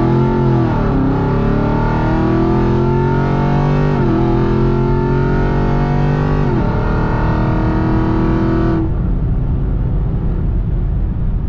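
Camaro SS's 6.2-litre V8 with Kooks headers and a Borla ATAK exhaust, heard from inside the cabin at full throttle during a roll-on pull from 40 mph, its revs climbing steadily. The pitch drops sharply with each automatic upshift, clearest about four and six and a half seconds in. The driver lifts off near nine seconds, leaving low exhaust rumble and road noise.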